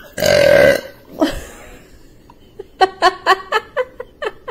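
A baby's single loud burp, followed a couple of seconds later by laughing in short, quick bursts that fall in pitch, about four a second.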